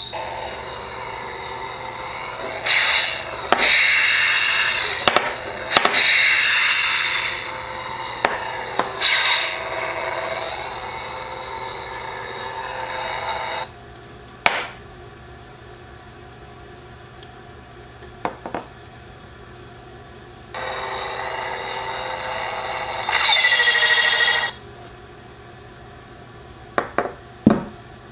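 A beam saber hilt's lightsaber sound card playing its effects: a steady electric hum with loud swelling swing and clash sounds over it, which cuts off about halfway through. After a few sharp clicks the hum starts again briefly and ends in a loud sweep falling in pitch.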